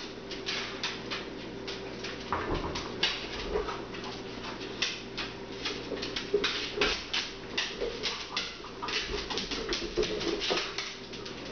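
Dogs' claws clicking and scrabbling on a hard terrazzo floor as they chase and paw a ball about: many quick, irregular clicks and taps.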